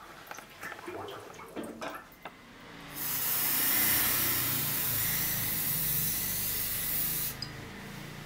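Aerosol can of Nano Protech electrical protective coating spraying a steady, loud hiss for about four seconds, starting about three seconds in and cutting off sharply. Before it come a few light clicks and handling knocks.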